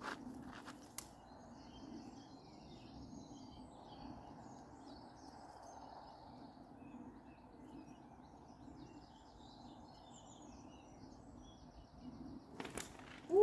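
Small birds chirping and singing over a steady low outdoor rush, with a few faint knocks near the start and again just before the end.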